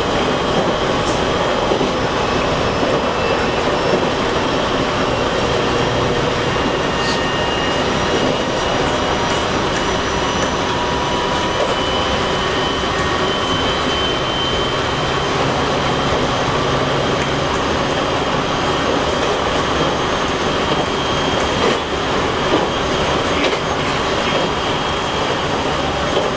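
JR East E721-500 series electric train, with Mitsubishi IGBT-VVVF traction equipment, running at speed, heard from inside the car: a steady rumble of wheels on rail with a faint high whine and a few light clicks.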